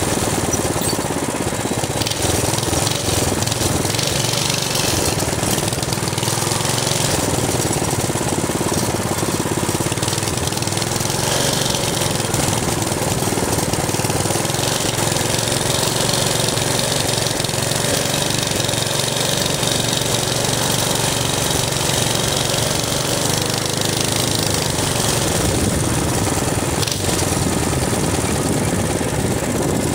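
Minibike's small engine running steadily while riding along, its pitch wavering slightly with the throttle.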